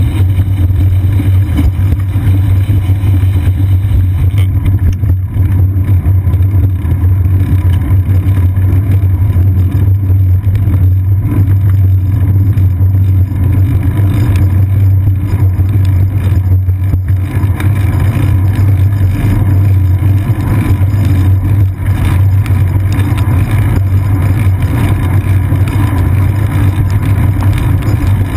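Steady low rumble of a bicycle rolling along wet pavement, picked up by a camera mounted on the seat post: road vibration and wind noise, with no distinct events.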